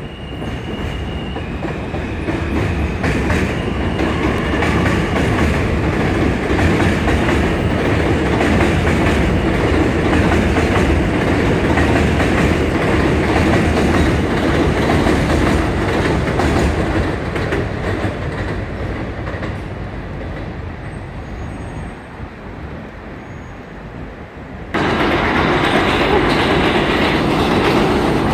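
New York City subway train running along a steel elevated structure overhead, a steady loud rumble with a thin high wheel squeal in the first few seconds. The noise eases off a little and then jumps back up suddenly near the end.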